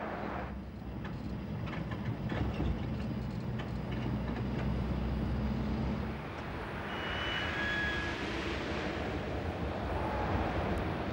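A jeep's engine running steadily as it drives over rough ground, with the body and load rattling. The sound changes about six seconds in, and a few short high squeaks come a second or two later.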